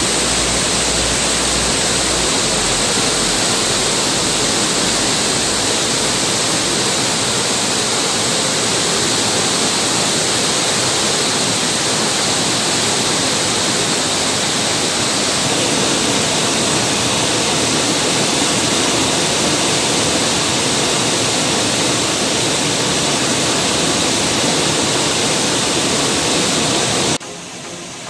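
Steady, loud rush of a waterfall: a dense, even roar of falling water with no breaks, cutting off abruptly about a second before the end.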